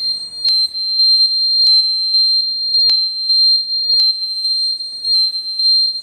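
Sonalarme buzzer of a power-failure alarm circuit sounding one continuous, steady, high-pitched tone. It is set off because the mains supply to the circuit has been cut.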